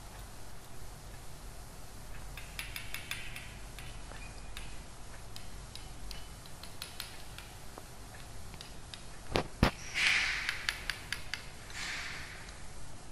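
A spatula clicking and scraping against a glass funnel while sodium carbonate powder is pushed through it into a glass volumetric flask. Small light clicks come and go, two sharper knocks about nine and a half seconds in, then brief scraping twice.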